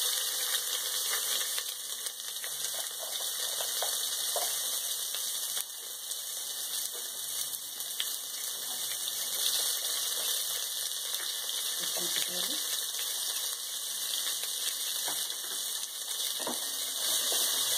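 Sliced onions and whole spices sizzling in hot fat in the pot of an electric rice cooker, a steady frying hiss, with a few faint knocks as onions and green chillies drop in and are stirred.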